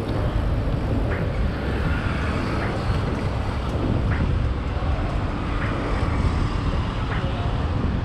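Steady road traffic noise from a busy multi-lane city street beside the pavement, heaviest in the low rumble, with faint short ticks about every second and a half.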